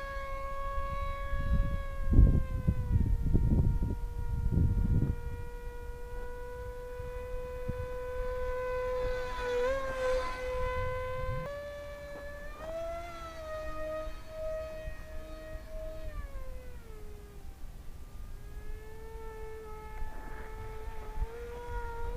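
AtomRC Bat delta-wing RC plane's electric motor and propeller whining in flight. The pitch steps up and down with throttle changes and wobbles briefly about ten seconds in. Gusts of wind buffet the microphone between about two and five seconds in.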